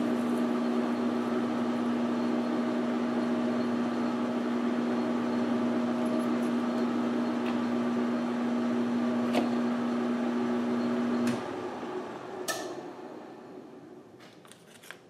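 Precision Matthews 12x36 lathe running with a steady hum while a carbide-insert parting tool cuts through a 1144 steel bar until the part parts off. About eleven seconds in the motor is switched off and the chuck coasts down, with a sharp click shortly after.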